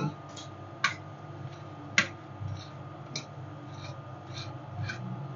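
Metal spatulas tapping and clicking against the steel cold plate of a rolled-ice-cream counter, in sharp irregular strikes, a few of them louder, over a steady low hum.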